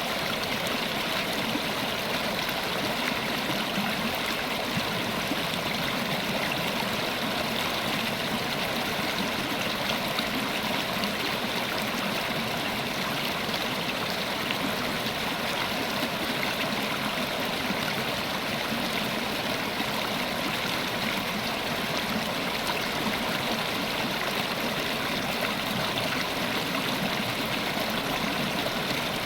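River water flowing steadily over rocks, a continuous rushing with a light gurgle.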